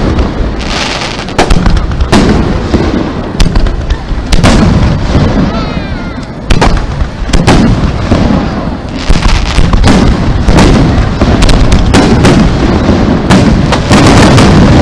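Aerial fireworks shells bursting one after another, a dense run of booms and bangs with crackle between them, heaviest near the end.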